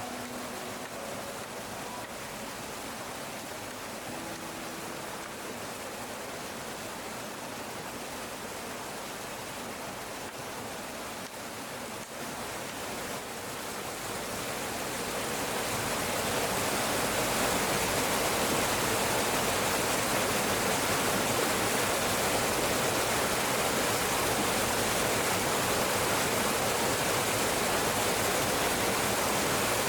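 Stream water rushing, a steady noise that grows louder about halfway through and then holds.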